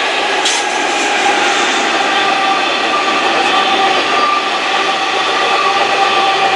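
Long train of empty iron ore wagons rolling past at speed behind a Class 15E electric locomotive: a loud, steady roar with several steady ringing tones running through it.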